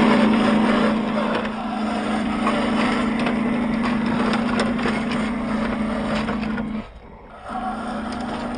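Radio-controlled dump truck's electric motor and gearbox running with a steady hum and rattle; it cuts out briefly about seven seconds in, then starts again.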